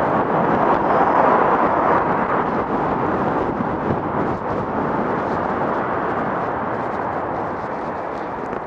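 Steady rush of wind over the microphone mixed with tyre noise from a Kingsong S18 electric unicycle rolling along an asphalt path, easing slightly in the second half.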